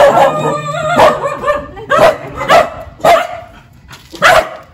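A dog barking repeatedly, about six short, loud barks spread unevenly over a few seconds.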